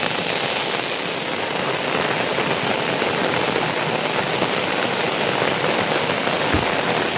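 Heavy rain falling, a steady even hiss, with one dull low thump near the end.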